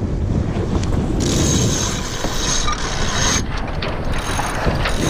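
Sailboat sheet winch being cranked to trim a sail in after a tack, its pawls clicking in two spells of about two seconds each, over steady wind noise on the microphone.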